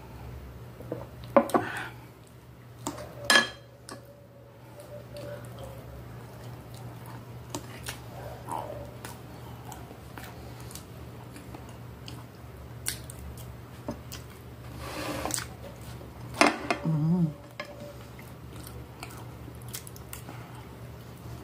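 Close-up chewing and eating sounds, with a metal fork clicking sharply against a glass plate a few times, loudest near the start and about two-thirds of the way through. A steady low hum runs underneath.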